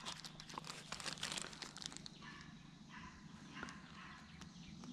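Faint handling noise of fingers working a small plastic fiber-optic mechanical splice and a plastic bag: scattered small clicks and rustles, busiest in the first couple of seconds, then quieter.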